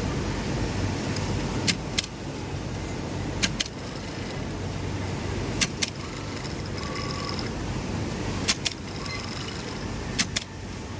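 Industrial sewing machines running steadily in a garment factory, a continuous mechanical hum. Sharp clicks come in pairs, each pair quick, about every two to three seconds.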